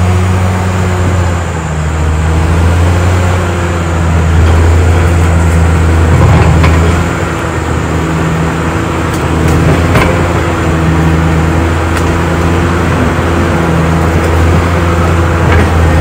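Caterpillar D6R XL bulldozer's diesel engine running steadily under load while pushing soil with its blade, the note rising and falling slightly, with a few light knocks.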